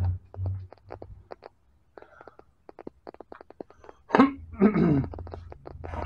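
Quick, irregular clicks and taps of hands working a fatbike tire against its rim, over a low steady hum, with a brief mumbled voice about four seconds in.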